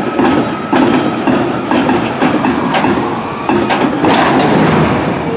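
Freight train cars rolling past, steel wheels clacking over the rail joints over a continuous rumble.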